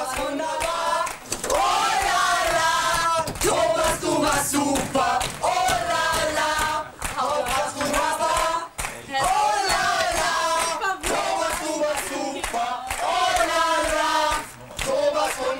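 A group of voices singing or chanting together in phrases a second or two long, with short breaks between them.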